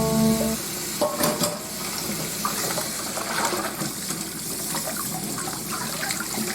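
Water running steadily from a kitchen tap, with a couple of clicks about a second in.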